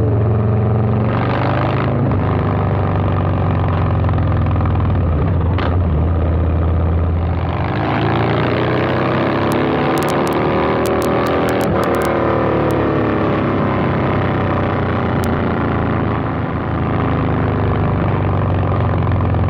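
2022 Harley-Davidson Low Rider S's 117 Milwaukee-Eight V-twin running through a Two Brothers 2-into-1 exhaust while riding, loud enough to boom out the microphone. The engine note climbs about eight seconds in and falls away again a few seconds later.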